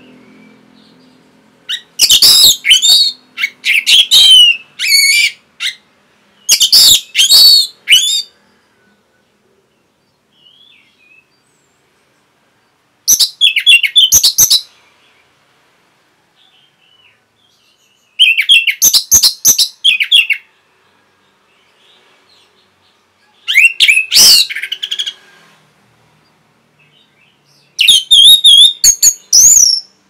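Orange-headed thrush (anis merah) singing loud, rapid, varied song phrases in about seven bursts of one to two seconds, with pauses of a few seconds between them.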